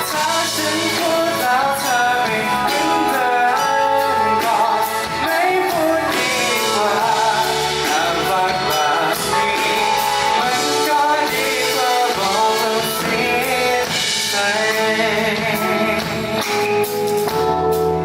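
Live band playing a Thai pop song, with a voice singing over the music.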